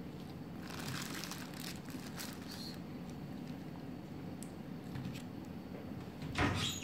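Soft crinkling and rustling of plastic and paper food wrapping being handled, with a louder rustle near the end.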